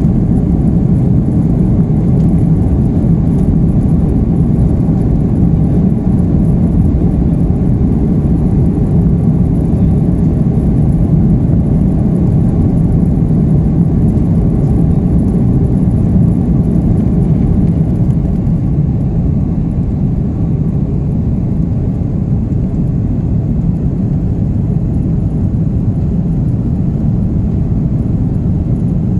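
Airliner cabin noise during the climb after takeoff: the steady, deep rumble of the jet engines and rushing air, easing slightly about two-thirds of the way through.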